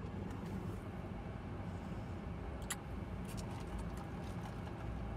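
Steady low rumble inside a parked car, with a sharp click about two and a half seconds in and a few lighter clicks and taps just after, as things are handled in the cabin.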